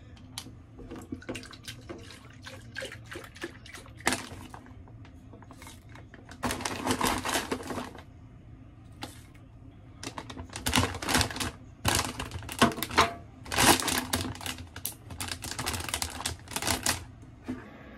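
A plastic granola bag crinkling as it is handled, with granola ticking and rattling out onto a plate. The sound comes as dense bursts of rustles and sharp ticks, the loudest about six seconds in and through most of the second half.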